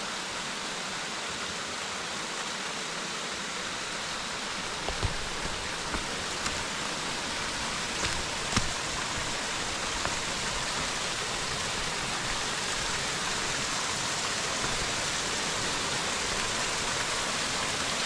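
Small waterfall rushing and splashing in a steady, even hiss, growing slightly louder, its flow low so that only a small fall runs. A few faint clicks come in the middle.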